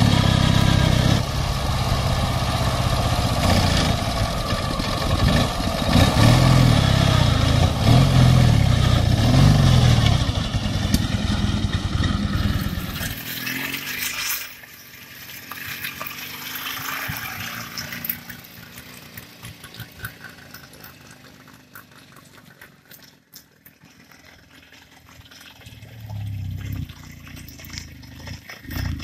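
Sidecar motorcycle engine revving hard, its pitch rising and falling, for about the first half. Then a much quieter stretch with scattered clicks, and an engine running louder again near the end.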